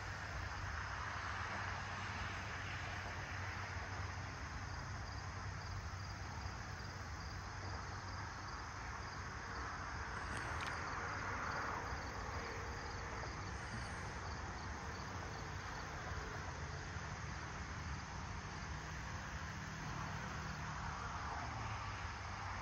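Crickets chirping in a steady, evenly repeating pulse, over a continuous low hum and hiss of background noise.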